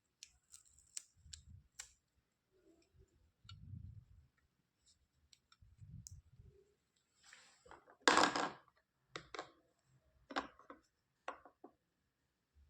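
Small plastic toys being handled: scattered light clicks and soft knocks, with a louder half-second rattle about eight seconds in.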